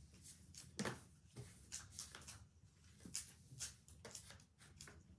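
Faint, scattered clicks and scrapes of oil pastel sticks being picked out of their box and rubbed onto paper, with a sharper click a little under a second in.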